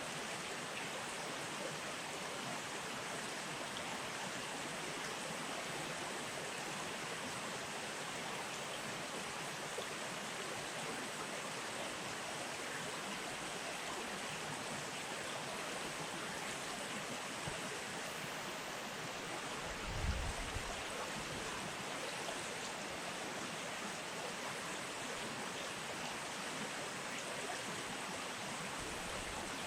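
Steady rushing of flowing river water, with a brief low rumble about two-thirds of the way through.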